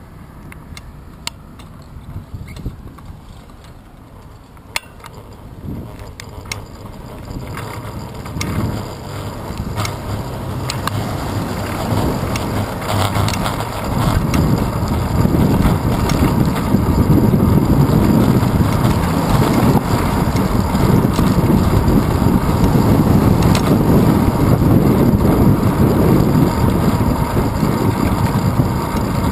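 Wind rushing over a handlebar-mounted GoPro's microphone on a moving bicycle, mixed with road rumble, building up over the first half as the bike gathers speed and then staying loud and steady. A few sharp clicks sound in the first several seconds.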